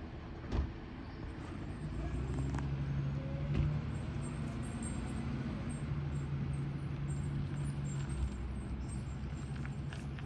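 A vehicle engine running steadily with a low hum that grows louder about two seconds in. A sharp click sounds about half a second in and another about three and a half seconds in.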